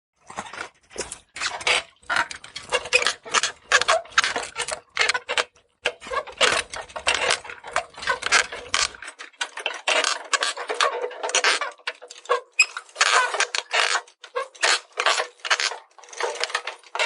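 A rapid, irregular run of clicks and rattles, like a small mechanism or toy being worked over and over.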